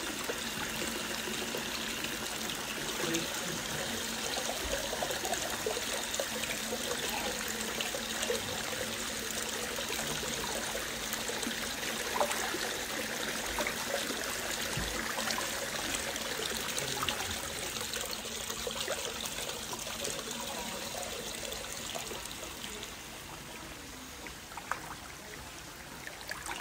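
Hot spring water running steadily into an open-air bath, a continuous trickle and splash that eases a little near the end.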